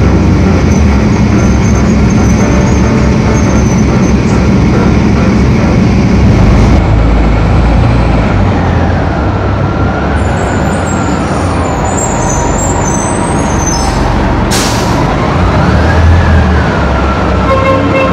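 New Flyer D40LF diesel transit bus running as it drives past, a loud low engine drone with a whine that dips and then rises again in pitch over the second half. A short hiss comes about fourteen seconds in.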